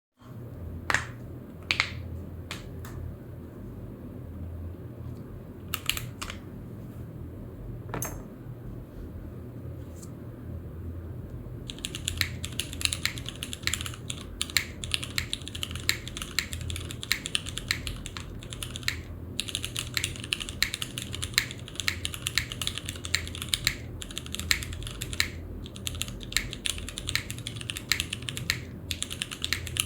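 Typing on a custom 60% mechanical keyboard with Cherry MX Grey tactile switches in a polypropylene plate and GMK keycaps: a few single keystrokes over the first dozen seconds, then fast continuous typing with brief pauses. A low steady hum runs underneath.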